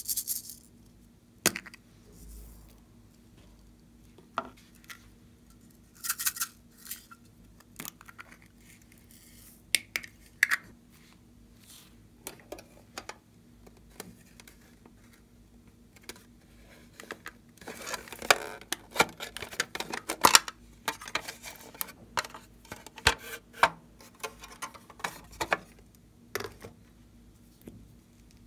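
Plastic makeup cases being handled and opened: scattered sharp clicks and taps, with a denser run of small clicks and scratching in the second half.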